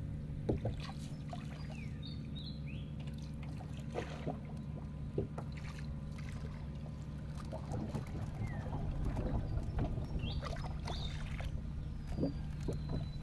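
A small boat being paddled: the paddle dipping and swishing through the water with scattered knocks against the hull, over a steady low hum and a few short bird chirps.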